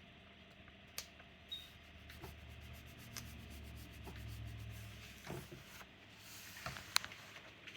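Hands rubbing and handling a vinyl laptop skin on a laptop, a soft friction noise broken by several light clicks.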